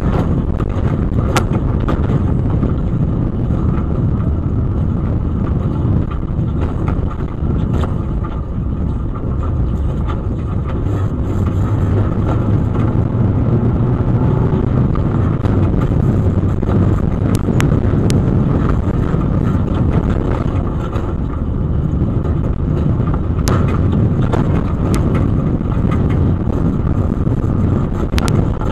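Off-road race vehicle driving fast over rough desert dirt, heard from inside the cab. The engine runs steadily under load beneath a heavy rumble of tyres and suspension, with scattered sharp knocks and rattles.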